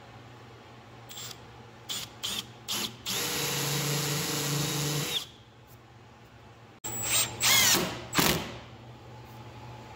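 Power drill running in short trigger pulls, then steadily for about two seconds. After a pause it runs in louder bursts, its pitch rising and falling with the trigger.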